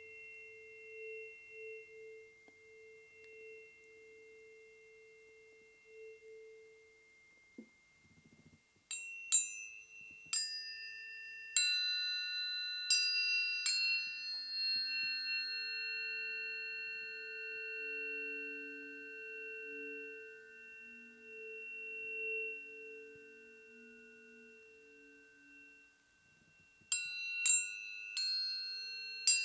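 Planetary tuning forks ringing in sustained pure tones that slowly swell and fade. About nine seconds in, a run of roughly six sharp strikes adds new higher ringing tones, and a few more strikes come near the end.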